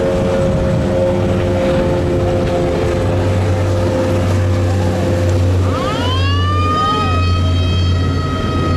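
Customs patrol boat running at high speed with a steady engine drone and the rush of its hull and wake. About six seconds in, a siren winds up and holds a steady high wail.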